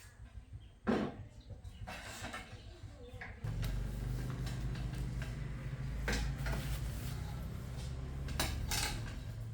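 Hard objects knocked and clattered as they are handled, with a sharp knock about a second in and more near the end. A steady low hum switches on about three and a half seconds in and keeps going.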